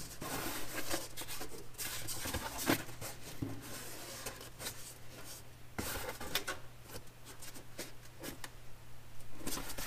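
A cardboard template rubbing and scraping against a car's body panel as it is pushed and shifted into place by hand, with a few light taps. A steady low hum runs underneath.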